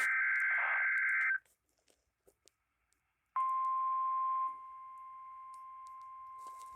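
NOAA Weather Radio weekly test through a scanner's speaker: a short screech of the SAME digital header data burst, then a couple of seconds later the steady single-pitch 1050 Hz warning alarm tone starts, becoming quieter about a second after it begins and holding on.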